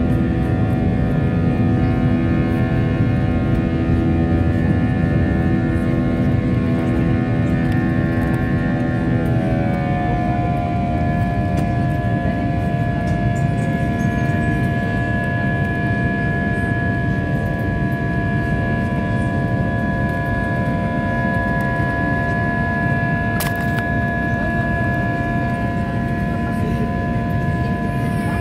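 Airbus A320 cabin noise during the climb after takeoff: a steady low rumble with the engines' whine over it. About ten seconds in the engine tones change pitch and settle on a new, steady set of notes. There is a single brief click about two-thirds of the way through.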